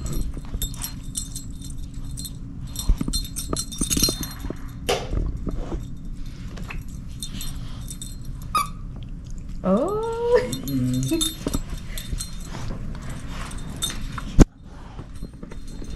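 A shepherd-mix dog chewing and tugging at a plush Christmas toy, with rustling and the metallic jingling of a small bell and collar tags. About ten seconds in comes a short squeal that rises and falls, and near the end a single sharp knock.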